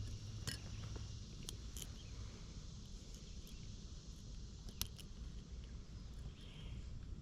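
Steady hiss and low rumble of flowing river water, with a few faint, sharp clicks and taps scattered through it.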